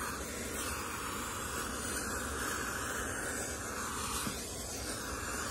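Sejoy handheld garment steamer running, a steady hiss of steam as it is passed over a hanging T-shirt.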